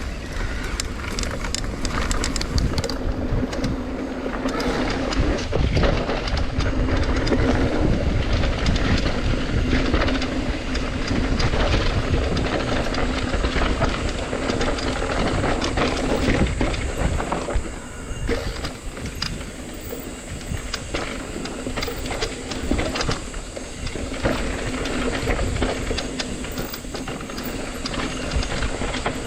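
Mountain bike being ridden down a rough trail: continuous tyre rumble with dense rattling and clattering, and wind noise on the microphone.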